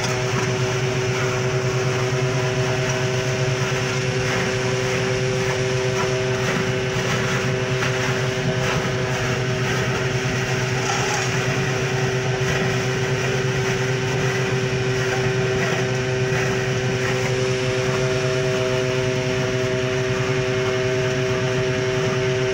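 An engine running steadily at a constant speed, an unbroken drone that does not change in pitch or loudness.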